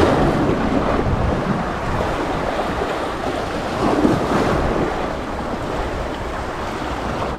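Sea waves washing in, with wind buffeting the microphone. The rush swells at the start and again about four seconds in.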